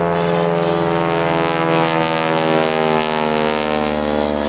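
Stearman biplane's radial engine and propeller running hard in flight, a steady engine drone with a rushing noise that swells about a second and a half in and fades near the end.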